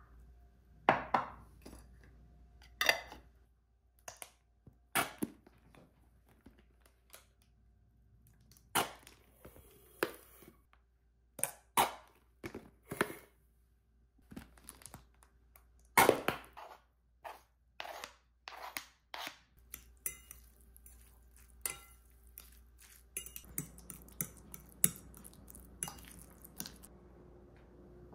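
Spoon and fork knocking and clinking against a ceramic bowl and a jar while mustard and mayonnaise are spooned into crumbled boiled egg: separate sharp knocks a second or two apart, turning into quicker, denser clicking near the end.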